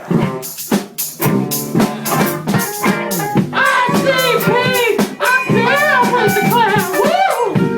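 A live band playing, with a steady rattling percussion beat. About halfway in, sliding, wavering melody lines come in over it.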